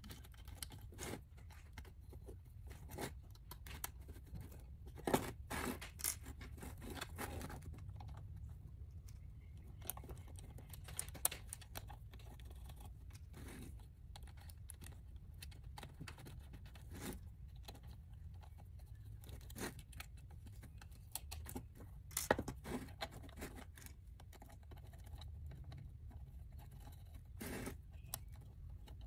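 Scattered small clicks, taps and scrapes of acrylic pieces, small metal bolts and nuts being handled and fitted by hand, with the sharpest clicks about 5 and 22 seconds in. A low steady hum runs underneath.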